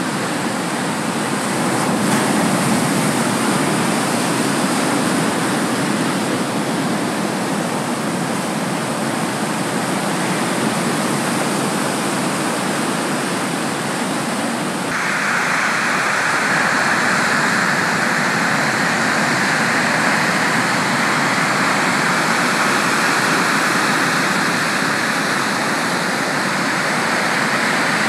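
Sea surf breaking and washing in a continuous rushing hiss. About halfway through the sound changes abruptly to a brighter, hissier tone.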